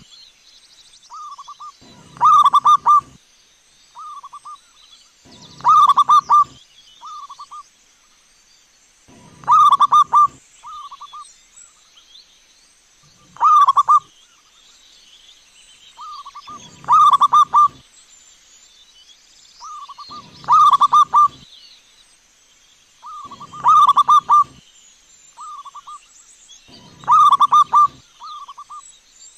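Zebra dove (perkutut) cooing: a loud phrase of rapid, rolling coo notes about every three and a half seconds, with shorter, softer coos in between.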